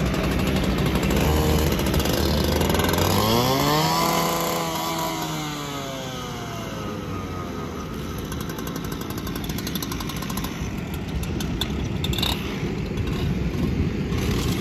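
A gas-powered rotary rescue saw revs up sharply about three seconds in, then winds back down over several seconds. An engine drone runs underneath, and a few sharp clicks come near the end.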